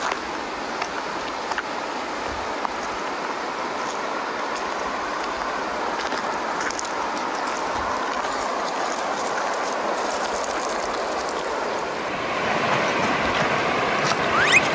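Shallow river rushing steadily over a cobble bed, growing a little louder near the end, with scattered clicks of loose river stones knocking together underfoot.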